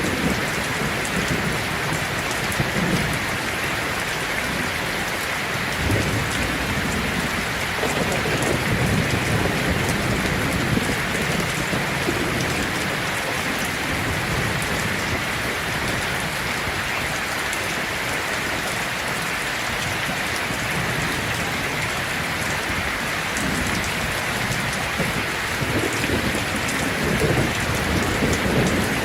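Heavy rain falling steadily on a tin roof, a dense even hiss, with low rolls of thunder that come and go and build again near the end.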